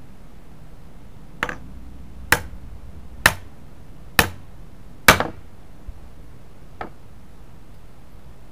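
Claw hammer driving a nail into a wooden strip: five sharp strikes about a second apart, the first lighter, then a faint tap near the end. The nail has been set with light taps and is now being driven in with full blows.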